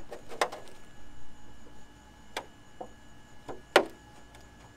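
A few sharp clicks and crackles of a clear polycarbonate RC car body being handled and pierced with a pointed body reamer, the loudest nearly four seconds in. A faint steady hum runs underneath.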